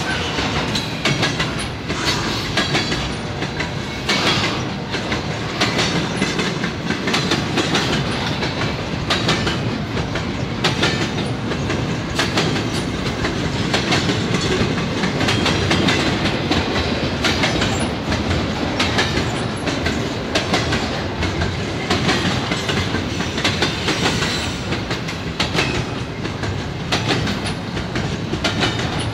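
Double-stack intermodal container train rolling past: the steady rumble of the well cars, with the repeated clickety-clack of their wheels over the rail joints.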